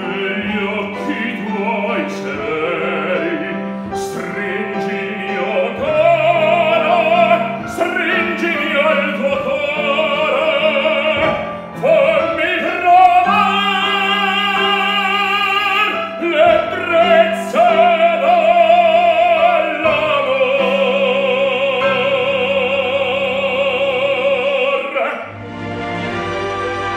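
Operatic baritone singing an Italian romance with piano accompaniment, climbing to sustained notes with strong vibrato; the last note is held long and ends about 25 seconds in. Softer instrumental background music follows.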